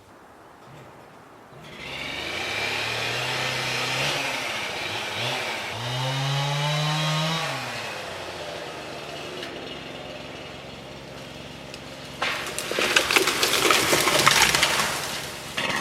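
Chainsaw running and revving up and down while felling red pine, then louder and rougher for the last few seconds as it cuts into the wood.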